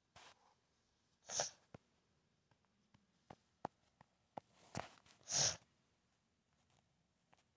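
A person sneezing twice, about four seconds apart, each a short, sharp burst, with a few faint clicks in between.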